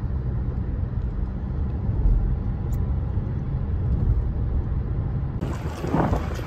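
Steady low rumble of a car heard from inside its cabin. About five seconds in it gives way to gusts of wind on the microphone.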